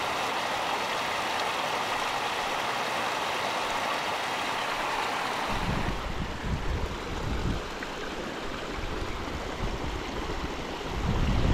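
Small creek water running steadily over rocks. About five and a half seconds in, a low uneven rumble joins it on the microphone.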